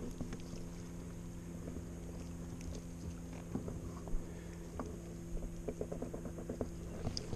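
Cast net being pulled back in by its hand line: light scattered clicks and rustles, more of them in the second half, over a steady low hum.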